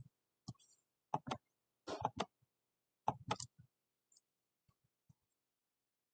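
Computer mouse and keyboard clicking: a series of sharp, short clicks, several in quick pairs, coming thickly for the first four seconds and then thinning to a few faint taps.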